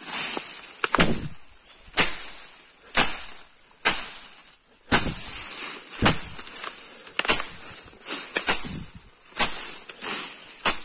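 Footsteps pushing through tall, dense grass, each stride swishing and crackling through the stems, about one a second, some with a dull thud of the foot landing.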